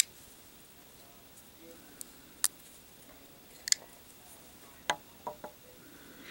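Sharp metallic clicks of a custom Damascus folding knife's blade being flicked open and snapped shut, about half a dozen clicks at uneven intervals. Near the end come a couple of softer knocks as the knives are laid on a wooden board.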